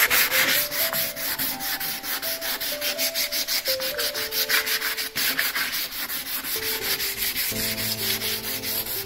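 Hand sanding of sandblasted oak boards with a sanding pad: quick back-and-forth scratchy strokes, several a second. The pad is smoothing down grain left rough and sharp by sandblasting.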